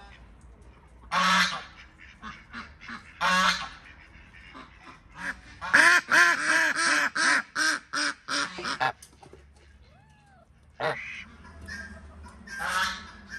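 Domestic geese honking: two loud single honks, then a quick run of honking and quacking calls as ducks join in. A single sharp knock comes near the end.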